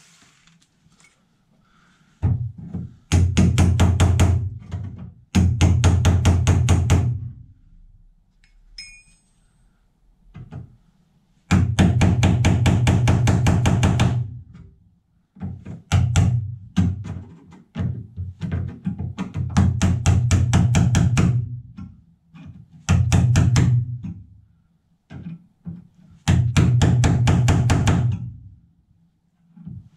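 A power tool hammering at the car's steel body panels in bursts of rapid, evenly spaced blows. Each burst lasts one to three seconds, with short pauses between them.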